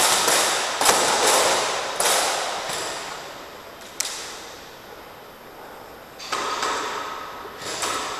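Airsoft shots cracking at irregular intervals, about ten in all, each one echoing for a second or more off the bare concrete walls of a large empty hall. Near the end a couple of cracks are followed by a faint ringing.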